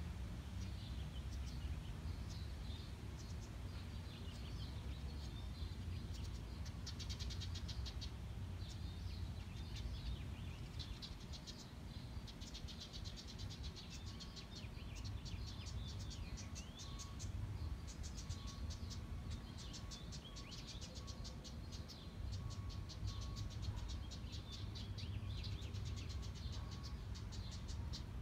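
House wren giving rapid, rattling chatter calls in repeated bursts of quick ticks, over a low steady background rumble.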